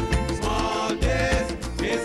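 Background music with a steady beat, bass notes and pitched melody.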